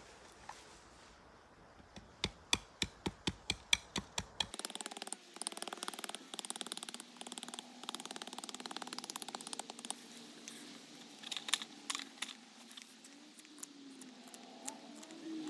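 A steel knife carving a sycamore stick: a run of sharp cuts about four a second, then faster, denser scraping cuts. Near the end a low hum that wavers in pitch comes in.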